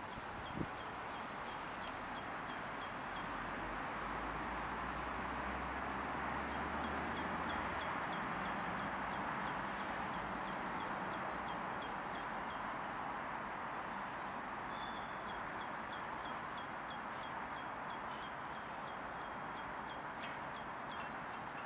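Steady outdoor hum of distant traffic, swelling for several seconds in the first half with a low vehicle rumble underneath. A small bird's quick, even series of high chirps repeats over it.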